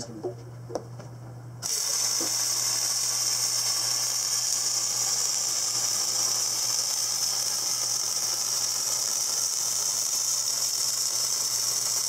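Electric arc welding on a steel sprayer wheel: the arc strikes nearly two seconds in and runs as a steady, even hissing sizzle. A low electrical hum sits underneath.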